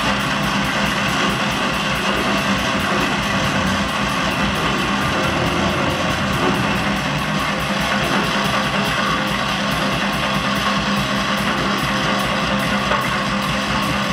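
Live goregrind played on distorted bass guitar and drums: a loud, unbroken wall of distorted noise with rapid drumming running through it.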